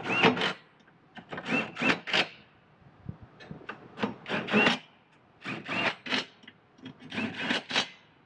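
A ratchet snugging up bolts under the car in short bursts, three or four close together, then a pause, repeating.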